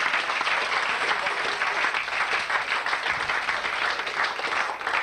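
An audience applauding: dense, steady clapping from a roomful of people.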